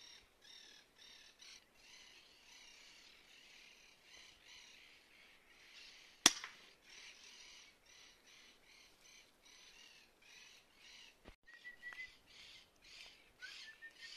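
A single sharp shot from a scoped air rifle about six seconds in, the loudest sound, over a steady background of birds calling in quick repeated notes, several a second.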